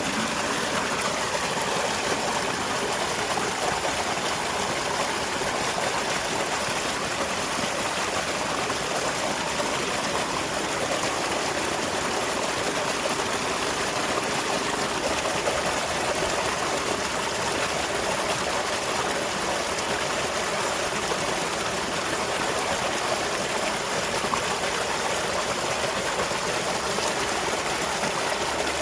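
Small waterfall splashing and flowing steadily.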